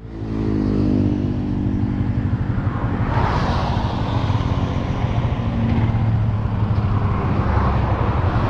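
Motorcycle engine running on the road, its note easing down a little over the first two seconds and then holding steady, with wind and road noise over it.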